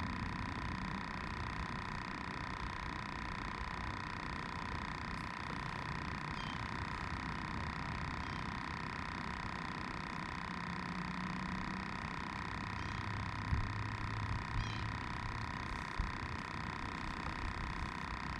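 Steady hiss of wind over the microphone and the open water, with a faint low hum in the second half and a few light knocks near the end.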